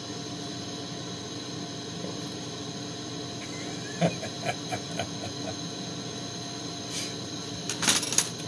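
Propane-oxygen glassworking torch flame hissing steadily while a glass rod is heated in it. A few short sounds come about four to five seconds in, and a louder burst comes near the end.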